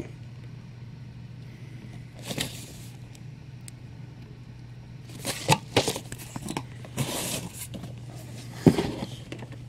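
Cardboard-and-plastic action figure box being turned over and handled: a crinkle about two seconds in, a cluster of rustles and taps from about five to seven and a half seconds, and a sharp tap near the end. A steady low hum runs underneath.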